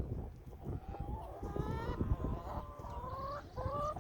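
Hens calling in the pasture: several drawn-out calls in a row, each rising slightly in pitch, over a steady low rumble.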